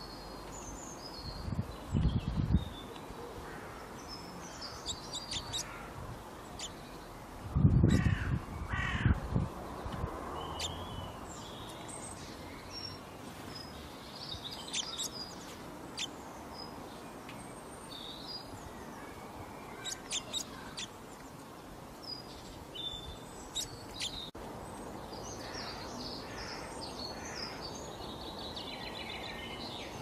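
Garden birdsong: small birds chirping and twittering, with louder, lower, harsher calls about two seconds in and again around eight to nine seconds.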